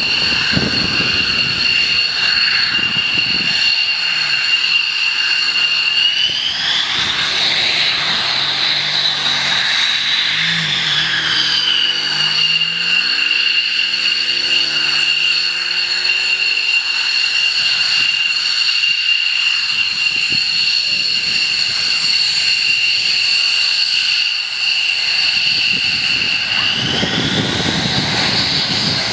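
F-15D's twin Pratt & Whitney F100 turbofan engines running at taxi power, a loud steady jet whine over a rush of exhaust. The whine rises in pitch about six seconds in as the throttles come up, settles back a few seconds later, and rises again near the end.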